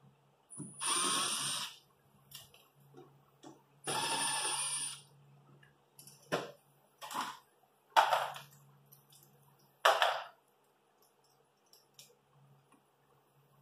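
Cordless power tool running in short runs as it backs out the plastic inner fender liner's fasteners: two runs of about a second with a steady high whine, then four brief bursts.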